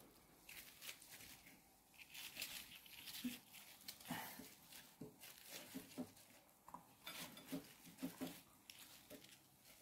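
Faint, scattered crinkles and soft taps of gloved hands handling food: fried chicken pieces lifted off a paper towel and laid onto a tortilla on a plate.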